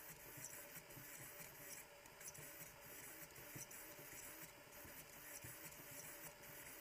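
Near silence: faint room tone with a faint steady hum.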